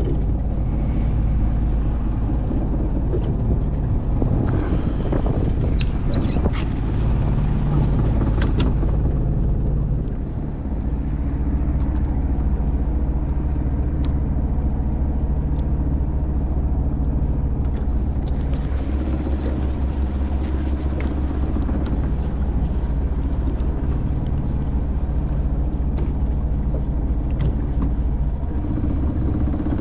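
Fishing boat's engine running steadily, a low even drone, with a few light clicks and knocks about a quarter of the way in.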